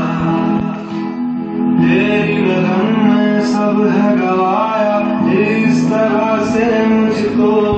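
Hindi song playing, with sung vocals over the music.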